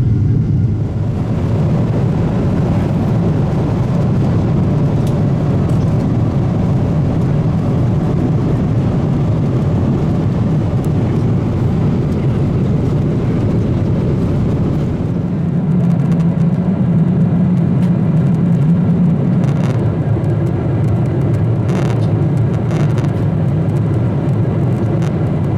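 Steady cabin noise of a Boeing 777-200LR heard from inside the passenger cabin, a low even rumble of engines and airflow. Its tone shifts slightly about halfway through, and a few faint clicks come near the end.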